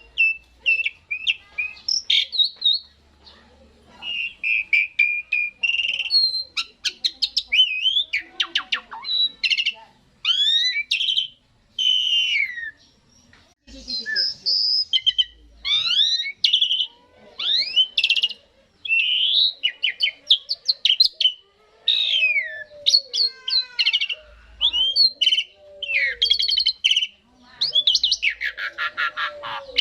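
Asian pied starling (jalak suren) singing a long, varied song of whistles, sliding squeaks and fast rattling chatter, delivered in phrases with short pauses.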